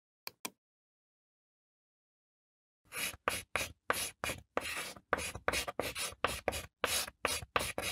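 Chalk writing sound effect: a rapid run of short scratchy chalk strokes, about three a second, beginning about three seconds in. Two brief clicks come shortly after the start.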